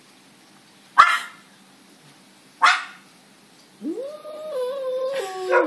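Animal calls between a cat and a dog: two single sharp bark-like calls about a second and a half apart, then, near the end, a long wavering howl that rises, holds, then drops lower in pitch.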